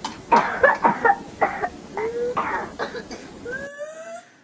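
A whooping cough (pertussis) fit: runs of quick, close-spaced coughs broken by high, rising whooping in-breaths. The sound stops shortly before the end.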